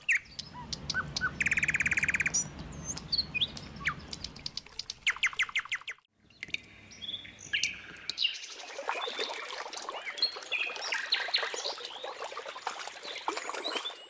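Birds chirping and trilling, with water pouring into a small plastic pond basin under them for the first few seconds. The sound drops out briefly about six seconds in, then the birds return as dense twittering.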